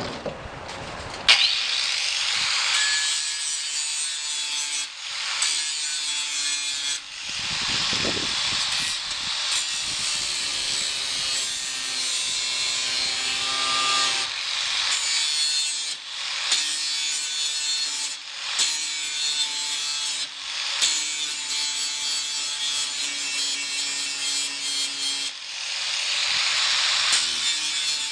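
Grinder grinding through the steel spot welds that hold the door skin flange to the bottom edge of a 1967 Mustang door shell. The grinding starts about a second in and stops briefly several times as the disc comes off the metal and goes back on.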